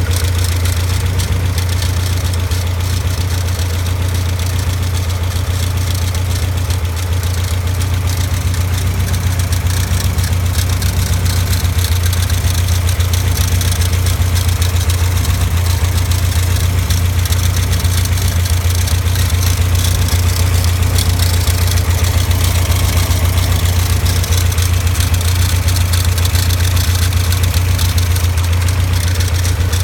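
Super Seven 1700SS engine idling steadily, with an abnormal noise coming from its alternator.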